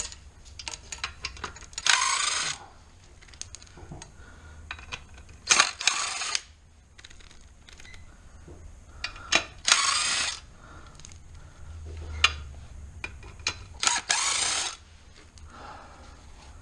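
Hand ratchet wrench clicking in short bursts as bolts are worked loose. There are four quick runs of ratchet clicks, with single clicks and knocks of tools between them.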